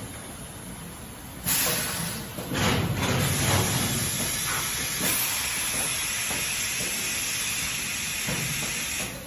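Steady air hiss from a high-frequency plastic and paper card welding machine during its working cycle. The hiss starts suddenly about a second and a half in and stops just before the end, with a louder low rumble about three seconds in.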